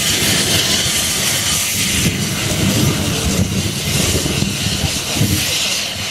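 Fuel fire burning at a rocket-engine static-test stand after a failed test: a loud, continuous, irregular rushing noise with a steady hiss of gas venting from the rig above it.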